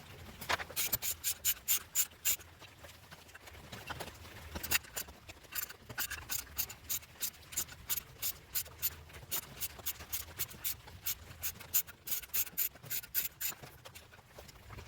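Irregular run of quick clicks and scrapes, several a second, like hand-tool work on metal, over a faint low hum.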